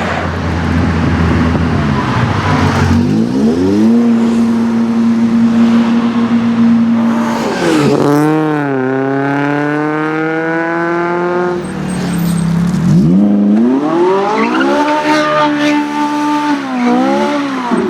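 Porsche 356 Speedster replica's engine running low, then revved up and held at high revs three times, each time dropping back before the next.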